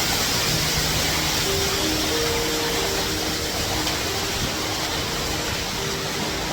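Steady rush of falling water with soft background music of long held notes laid over it.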